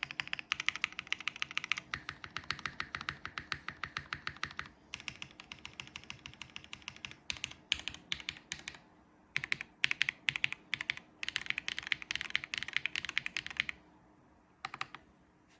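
Fast typing on a Mode Sonnet custom mechanical keyboard with lubed Bolsa Supply Zaku linear switches, a carbon-fibre plate, plate foam and GMK keycaps: rapid runs of keystrokes with a few short pauses. The typing stops near the end after a last couple of keystrokes.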